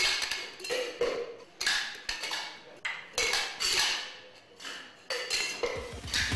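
A series of sharp clinks, about eight at uneven intervals, each ringing out briefly before the next.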